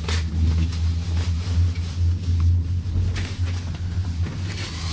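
Steady low droning rumble inside a moving gondola lift cabin, with a few faint brief rustles.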